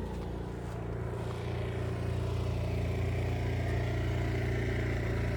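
Lamborghini Huracan Evo engine idling steadily after being run long enough to overheat the coolant tank.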